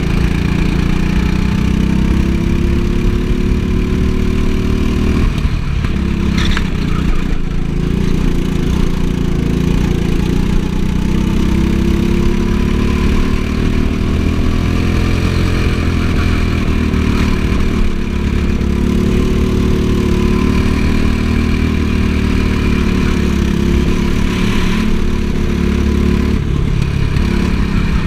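Go-kart engine running at speed through a lap, its pitch rising and falling with the revs as the kart accelerates out of corners and slows into them, over a steady low rumble.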